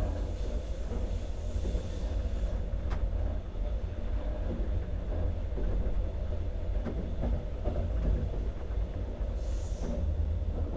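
Passenger train running along the line: a steady low rumble of wheels on track, with a brief hiss near the start and another near the end.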